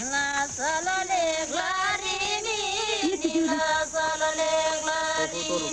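A voice singing a melody with sliding, wavering pitches, settling on one long held note in the second half.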